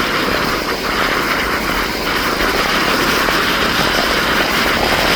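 Steady engine noise of a Canadair CL-415 water bomber's twin turboprops, a continuous even drone with no break.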